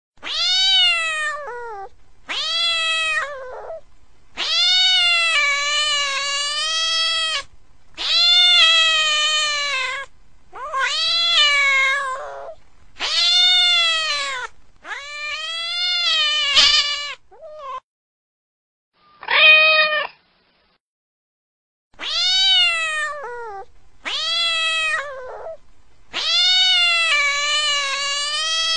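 Domestic cat meowing over and over: about eleven loud, drawn-out meows, each arching up and then falling in pitch, some held for nearly three seconds, with a short pause a little past two-thirds of the way through.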